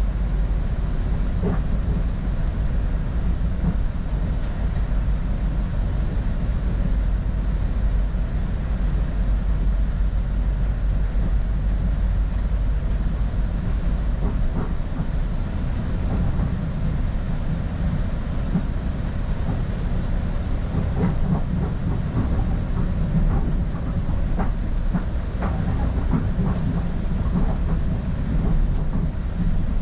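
Northstar commuter train running along the track: a steady low rumble with scattered clicks of wheels over the rails, more of them in the second half.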